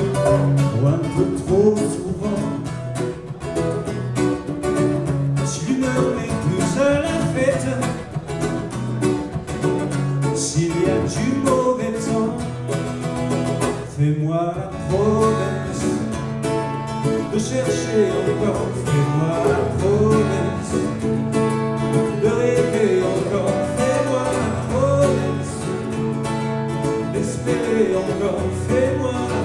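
Acoustic guitar and ukulele playing a reggae song live, with a melody line over the strummed chords.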